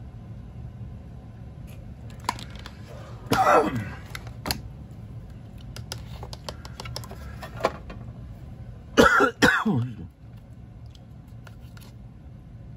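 A person clearing their throat: one short burst about three seconds in and two more close together around nine seconds in, each falling in pitch, over a low steady room hum with a few light clicks.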